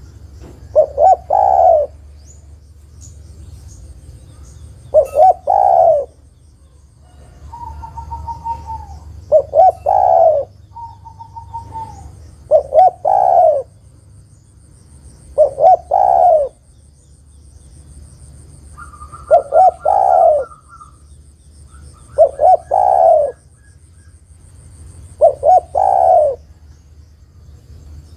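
Female spotted dove cooing, a call to a male: eight short phrases of a few coo notes each, repeated roughly every three seconds.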